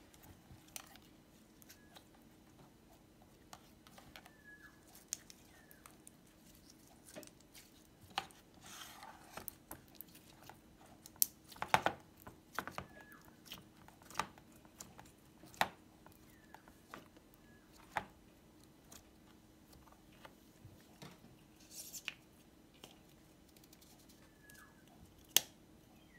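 Glitter slime pressed and squeezed by fingers and packed into a plastic tub, giving scattered sharp pops and clicks, with a cluster of louder ones about midway.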